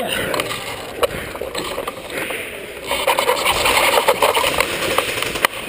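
Airsoft electric guns firing in rapid clicking bursts, densest from about three seconds in, after a few single sharp clicks.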